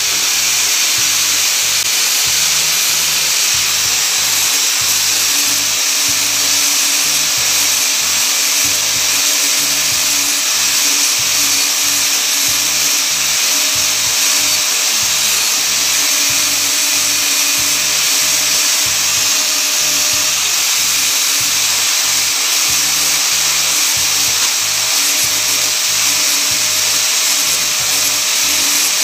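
Electric angle grinder running steadily under load, grinding paint off a scrap iron bar. Background music with a steady beat plays underneath.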